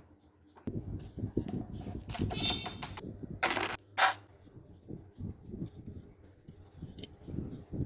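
Clicking and clattering of small parts and tools being handled, with two short, loud noisy bursts about halfway through.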